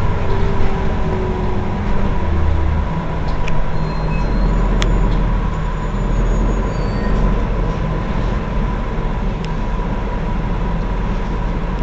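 Heuliez GX 327 city bus engine idling at a stop: a steady low hum with a thin steady whine above it.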